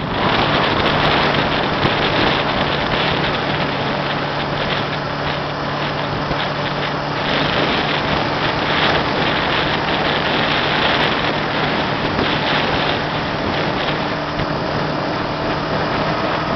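Steady road and wind noise of a moving vehicle, with a low engine hum underneath; it gets louder abruptly at the start.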